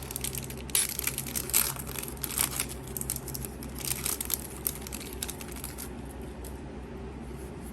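Foil booster pack wrapper crinkling as it is handled and torn open, in dense bursts through the first three seconds or so, then a few fainter rustles.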